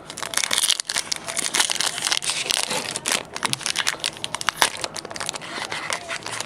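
Foil Pokémon booster pack wrapper crinkling as it is handled and torn open, a dense run of sharp crackles.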